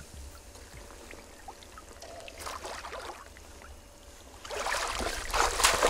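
Water splashing and sloshing in the shallows as a hooked sea trout is landed by hand, the splashing growing louder from about four and a half seconds in, over a low wind rumble.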